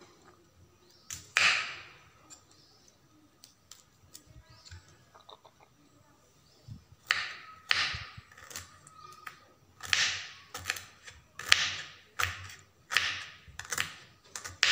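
Kitchen knife cutting through broccoli stems and knocking on a wooden cutting board: a single chop about a second in, then after a quiet pause a run of sharp knocks roughly every two-thirds of a second from about seven seconds on.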